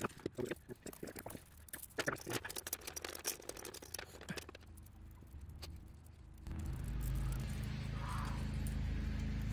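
Steel recoil-starter spring of a chainsaw being wound by hand into its pulley, with many small metallic clicks and rattles that die down after about four seconds. About six and a half seconds in, a steady low hum starts and carries on.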